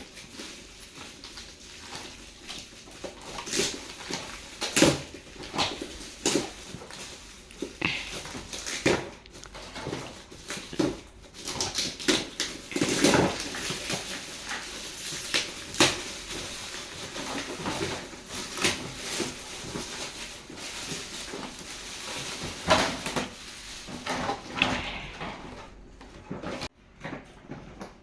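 Gift wrapping paper and packaging being torn, crinkled and handled, with a busy run of irregular crackles and small knocks that thins out near the end.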